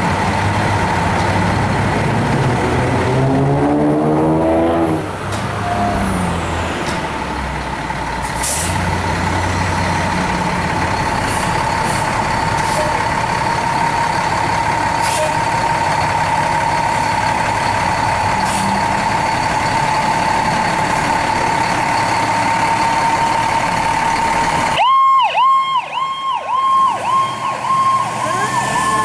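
Spartan Gladiator fire engine's diesel running as it pulls out on a call, with sharp air-brake hisses and a steady high tone. About 25 seconds in, its electronic siren suddenly starts a fast, repeating up-and-down yelp.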